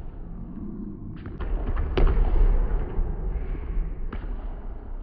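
A basketball's thuds on a gym court: a handful of sharp impacts during play, the loudest about two seconds in, followed by a second or so of low rumble.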